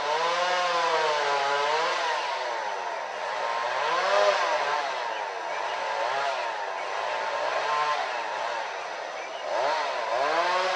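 Chainsaw revving up and dropping back several times, its engine note rising and falling every second or two.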